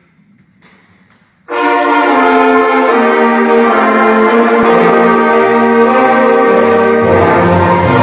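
Youth concert band of brass and woodwind instruments starting to play: a loud sustained chord comes in suddenly about a second and a half in, with low notes joining about halfway through.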